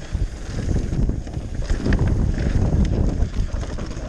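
Wind buffeting the microphone over the rumble of a mountain bike riding fast down a dirt trail, with irregular clicks and rattles from the bike over rough ground.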